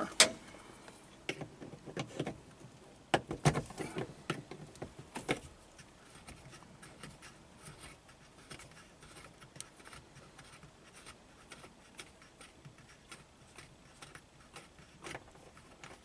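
Irregular small metallic clicks and taps, a few louder ones in the first five seconds, then a run of faint quick ticks: needle-nose pliers and fingers working the big retaining nut off the shaft of a Mercedes-Benz W123 headlight switch.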